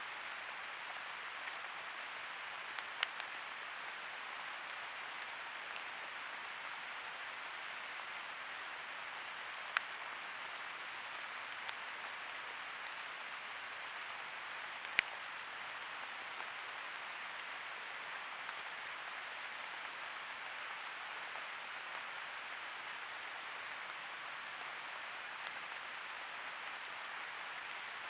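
Steady hiss from a trail camera's microphone, with three short sharp ticks along the way, the last one the loudest.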